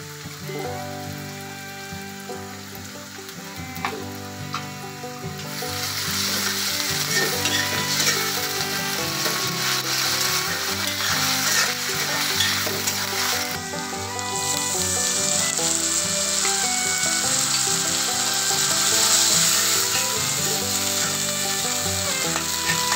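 Sliced onions, whole spices and garlic-ginger paste sizzling in hot oil in a metal wok, stirred with a metal spatula. The sizzle grows louder about five seconds in and stays strong.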